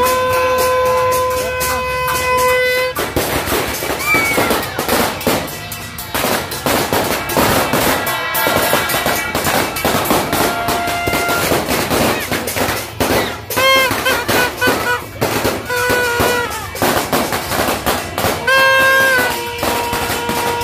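Firecrackers popping and crackling in rapid, irregular bursts, while a New Year's torotot party horn is blown in steady toots: one long toot at the start, short ones in the middle, and another long one near the end.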